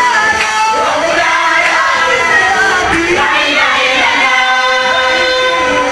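Amplified singing over a loudspeaker, the voice sliding between pitches and holding a long note in the second half.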